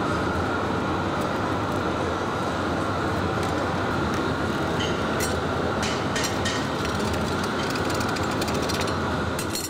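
Steady rushing noise of a glassworks furnace's burners, with a few light clicks over it midway through.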